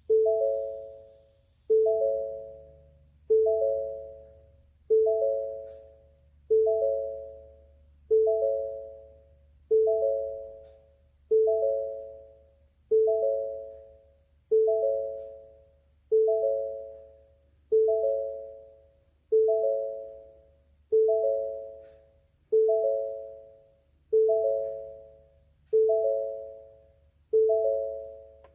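Ford door-open warning chime, signalling that a door is open: a chime of three close tones struck about every 1.6 seconds, each ringing and fading before the next, repeating steadily.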